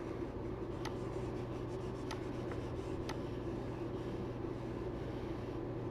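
A few light, sharp clicks of a stylus tapping on a tablet screen while erasing digital ink, spaced about a second apart, over a steady low electrical hum.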